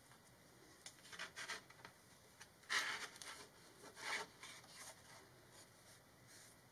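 Hands sliding and handling a paper comic book on a sheet of paper: soft rubbing and brushing of paper in short strokes. The loudest two come about three and four seconds in.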